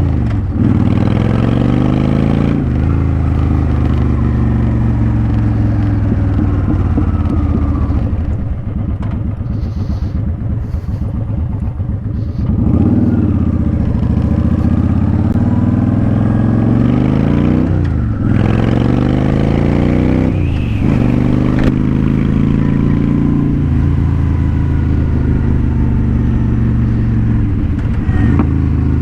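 Honda Shadow Spirit 750 V-twin running through its Cobra Streetrod Slashdown exhaust while ridden. The revs climb and then drop sharply several times as it shifts gears, with noise behind it.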